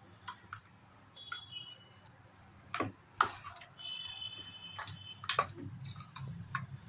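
Hand mixing boiled rice and curd in a steel bowl: scattered soft clicks and taps of fingers and wrist against the bowl, with two brief high ringing tones.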